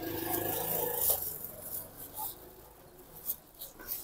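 Packaging being handled as a gimbal is lifted out of its box: rustling with a few light clicks. For about the first second a pitched, voice-like sound runs over it.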